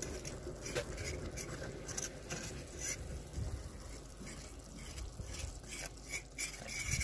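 A metal fork stirring a thickening wine-and-flour sauce in a frying pan, scraping and clicking repeatedly against the pan.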